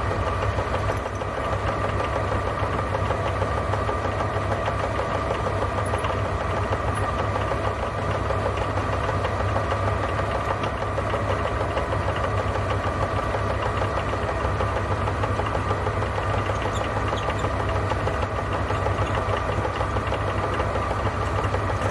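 Milling machine running steadily while its cutter mills a slot through a cast frame part, a constant motor hum with a dense, rapid chatter from the cutting.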